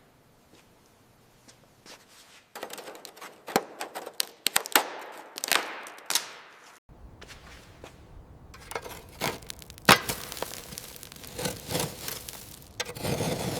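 Hand tools knocking and clinking on metal in irregular runs of sharp strikes, starting about two and a half seconds in. There is a short break near the middle, and a steady hum joins in near the end.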